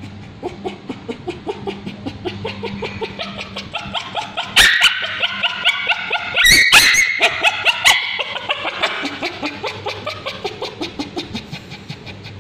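Male Bichon Frise screaming and yelping in a rapid run of short, high-pitched cries, about four a second, while ointment is dabbed on his scabies-sore tail. The cries grow loudest and shrillest from about four to eight seconds in, then ease back to quicker, softer cries.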